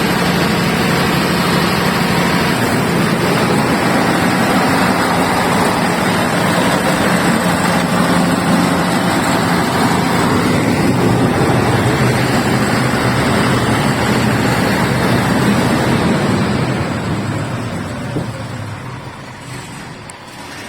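Iveco diesel engine of a 350 kVA generator set running with a steady hum, the sound dying away over the last four seconds or so.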